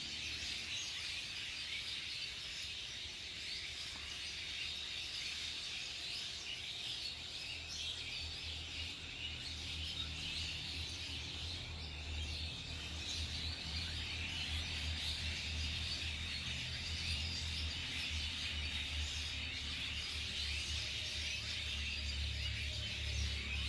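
Outdoor nature ambience: a dense, steady chorus of high chirping over a low rumble.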